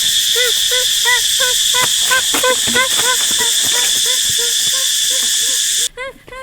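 Steady, shrill insect drone that cuts off abruptly near the end, over a short rising-and-falling animal call repeated two or three times a second.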